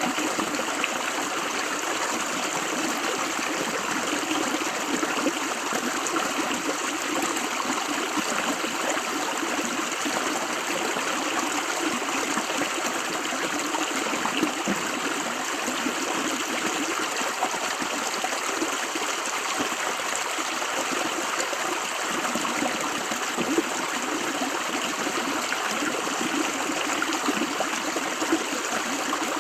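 River water running over stones, a steady flowing and trickling rush with no breaks.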